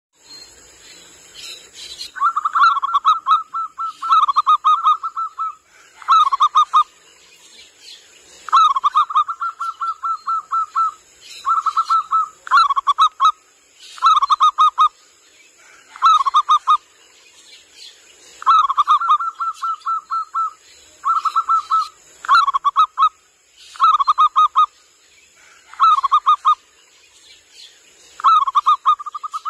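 Zebra dove (local Indonesian perkutut) cooing: repeated phrases of rapid, trilled coos, some short and some drawn out into longer rattling runs, about one phrase every two seconds. A faint steady high hiss runs underneath.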